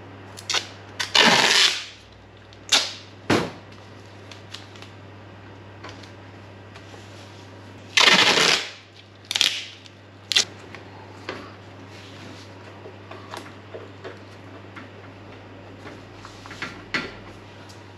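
Adhesive tape pulled off the roll in two long crackling rips, about a second in and about eight seconds in, with shorter tears and crackles between as the tape is torn and pressed down.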